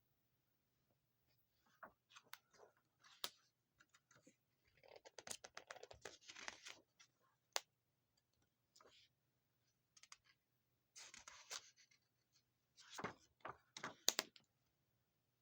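Pages of a small comic book being turned and handled, with scattered light clicks and short papery rustles that come in two busier spells, about five seconds in and again from eleven seconds in.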